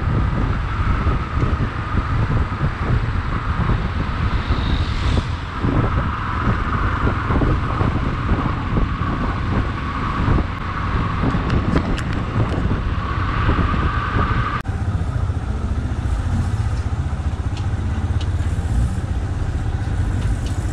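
Yamaha XTZ 250's single-cylinder engine running under way in city traffic, with road and wind noise. About two-thirds through, the sound changes abruptly to a steadier engine hum with less wind.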